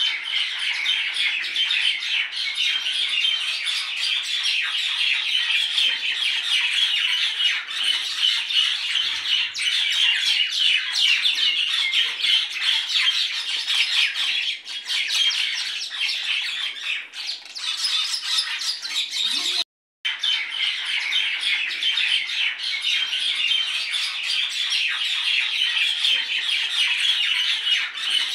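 A dense, steady chorus of many birds chirping and squawking, broken by a brief dropout about two-thirds of the way through.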